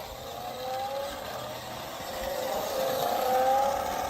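The electric drive motor of a 1:14 scale RC monster truck whining and rising in pitch as it speeds up. There is a short rise about half a second in and a longer, louder one from about two seconds in.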